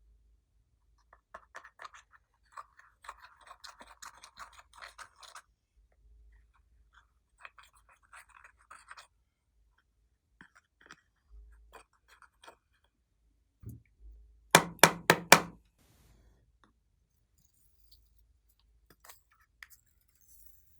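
Glossy slime being worked by hand, giving runs of fine crackly clicks as it is squeezed and stretched. About two-thirds of the way through come four loud, sharp pops in quick succession, typical of air bubbles bursting as the slime is pressed.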